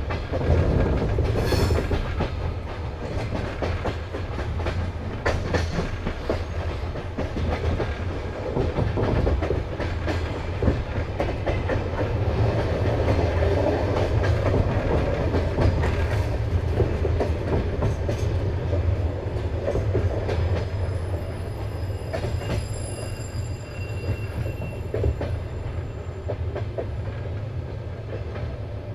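Passenger train coach rolling along the track: a steady low rumble from the wheels, with irregular clicks and knocks as they pass over rail joints.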